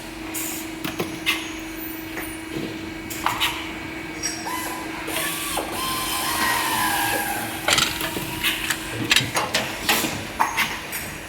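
Factory workshop machinery: a steady hum that stops about nine seconds in, with scattered sharp clicks and knocks of parts and fittings being handled.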